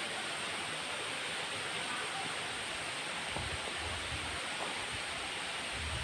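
Steady, even rush of the Sedudo waterfall, a tall, thin falling column of water about 105 m high, plunging into its pool. A few short low rumbles break in about halfway through and again near the end.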